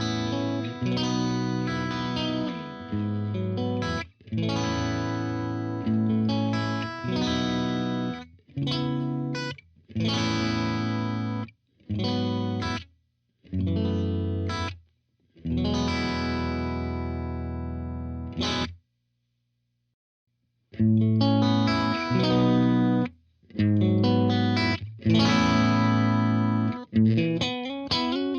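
Distorted electric guitar through a Blackstar Studio 10 6L6 tube amp with the gain cranked: chords struck and let ring, each cut off abruptly, with a pause about two-thirds of the way through and quicker picked notes near the end.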